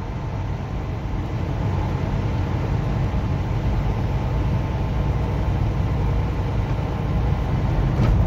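Semi-truck engine and tyre noise heard inside the cab at highway speed: a steady low rumble.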